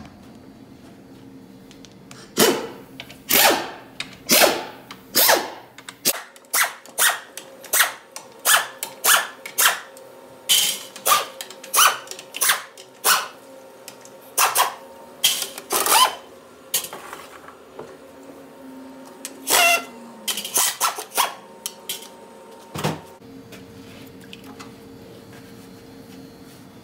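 Pneumatic air ratchet spinning out the oil-pan bolts of a GM 6L80 automatic transmission, in many short bursts one after another over about twenty seconds.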